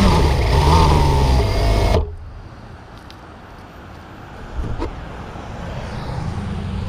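A freshly rebuilt engine running on test, its revs rising and falling, then cutting off suddenly about two seconds in, leaving a low rumble.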